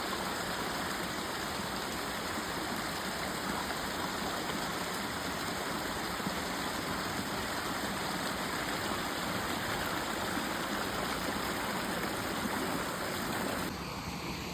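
Steady rushing of a rain-swollen stream, full and fast after a night of heavy rain. The sound drops slightly in level about a second before the end.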